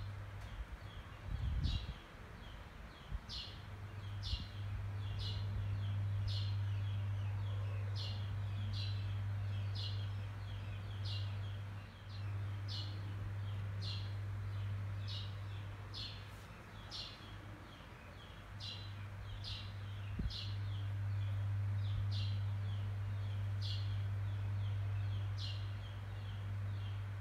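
A bird chirping over and over, short high falling chirps a little more than once a second, over a steady low hum.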